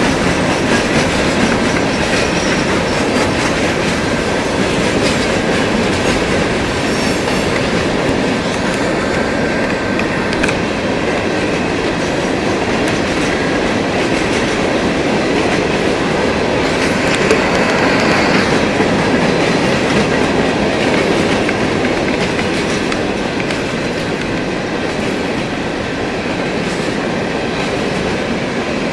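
Empty coal-coke hopper cars of a freight train rolling past at steady speed, a continuous rumble with the wheels clattering over the rail joints.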